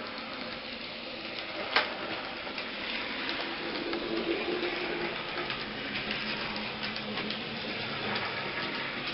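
N-scale model train running on its track: a steady rolling rattle with light ticks from the wheels, and one sharp click about two seconds in.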